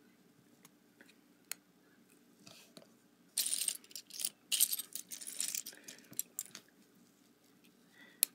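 Loose plastic Lego pieces clattering and rattling as a hand rummages through a pile of them, in a dense stretch of a few seconds through the middle. Single sharp clicks of bricks come before it and once near the end.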